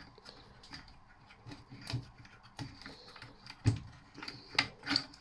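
Scattered light clicks and knocks of a brass fitting being unscrewed and handled on a plaster light fixture, the sharpest knocks in the second half.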